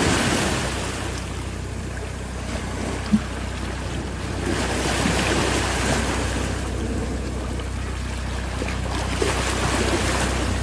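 Water sloshing and splashing in swells, over a steady low hum.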